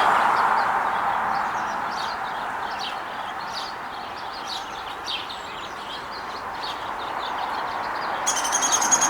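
Passing road traffic, fading away and then swelling again as another vehicle approaches, with small birds chirping faintly. Near the end a louder, rapidly pulsed high-pitched bird call starts.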